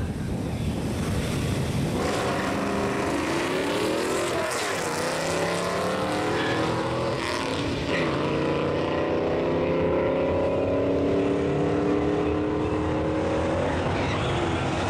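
Two street cars launching off a drag strip start line about two seconds in. Their engines rev up through the gears, the pitch climbing and dropping back at shifts about 4.5 and 7.5 seconds in, then a long climb in top gear as they run down the quarter-mile.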